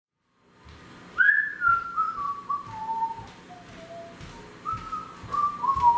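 A person whistling a tune: a run of notes stepping down in pitch, then a second descending run starting about halfway through.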